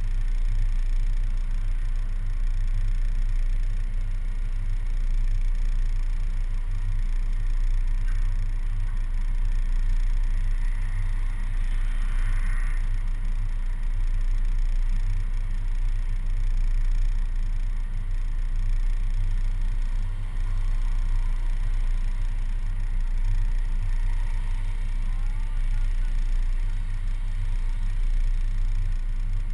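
City bus engine idling while the bus stands still: a steady low hum, picked up through the camera's suction mount on the front of the bus. A faint, brief higher sound from passing traffic comes about twelve seconds in.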